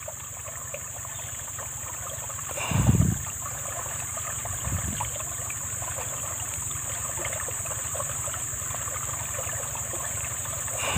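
Water trickling and running steadily, with a constant high insect drone over it. A dull low thump comes about three seconds in, and a softer one a couple of seconds later.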